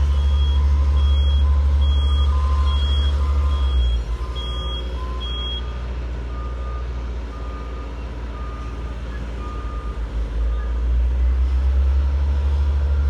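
Construction vehicle's diesel engine running, with reversing alarms beeping over it: a high-pitched beeper sounds about once a second and stops about six seconds in, while a second, lower-pitched beeper keeps going until about ten seconds in. The engine eases off about four seconds in and picks up again near the end.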